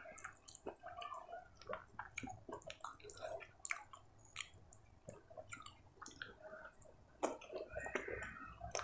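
Close-miked chewing of a mouthful of paratha and curry, full of short wet mouth clicks and smacks. A louder smack comes about seven seconds in.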